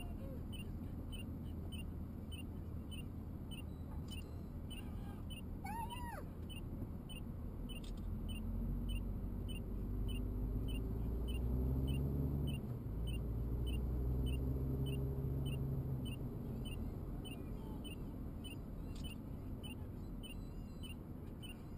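Road and engine rumble from inside a car moving slowly through traffic. A deeper engine drone swells from about 8 to 16 seconds in, loudest around 12 seconds, as the car passes a fire engine. A faint even ticking runs about twice a second.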